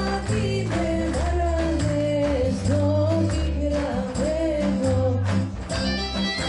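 Live band playing Greek folk dance music: a woman sings an ornamented melody over a steady beat and a pulsing bass line.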